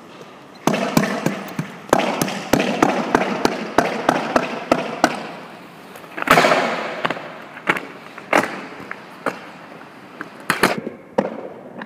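Skateboard doing freestyle tricks on a smooth stone floor: wheels rolling and the deck and wheels clacking and slapping down, first in a quick run of clacks, about four a second, then a loud slap about six seconds in and scattered clacks after it.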